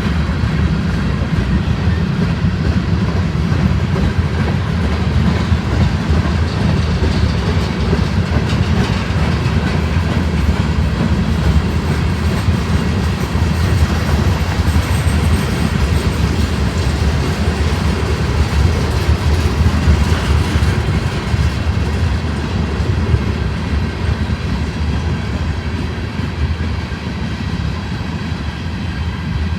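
Freight train rolling steadily past on the rails, its wheels and cars making a continuous rumble.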